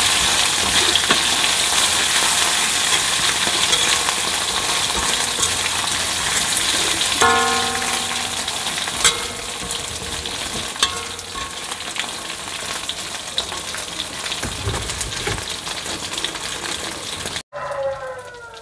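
Dried anchovies sizzling in shallow hot oil in an aluminium wok while a metal spoon stirs them; the sizzle slowly dies down as the fish dry out. A ringing metal clank of the spoon on the wok comes about seven seconds in, with a few sharper clicks after it, and the frying cuts off suddenly near the end.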